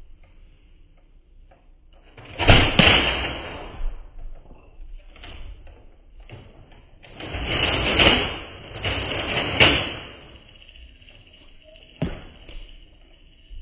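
Nerf blaster shots and foam darts striking a fort of wooden toy blocks: a loud sharp hit about two and a half seconds in, a longer louder noisy stretch from about seven to ten seconds in with two sharp peaks, and a single sharp knock near the end.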